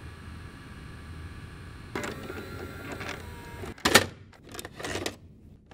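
Mechanical whirring and clicking sound effects: a faint hum, then from about two seconds in a run of whirs, with a sharp loud click about four seconds in and a few shorter ones after it.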